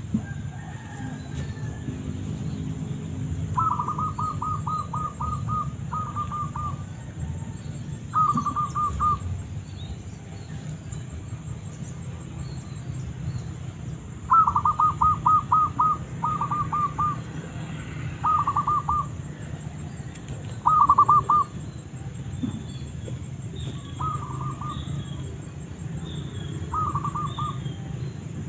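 Zebra dove (perkutut) cooing: short bursts of rapid staccato notes, repeated again and again, the loudest run about halfway through. A low rumble and a faint steady high whine lie underneath.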